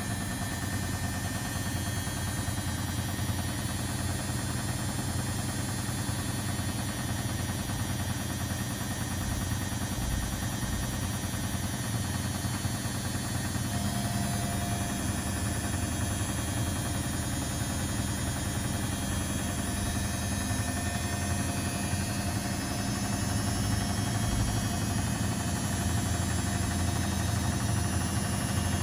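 Household washing machines and tumble dryers running together: a steady mechanical hum and rumble, with a higher tone joining about halfway through.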